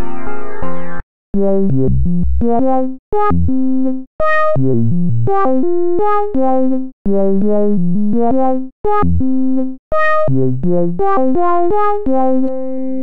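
Phase Monkey software synthesizer playing a sequenced single-note lead melody on its 'Meow Lead' preset, one bright note at a time with short gaps between them. About a second in, a sustained chord from the previous pad preset stops, and near the end a low chord begins.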